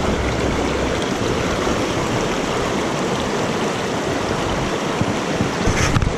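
Small mountain creek running steadily over rocks, with one brief sharper sound near the end.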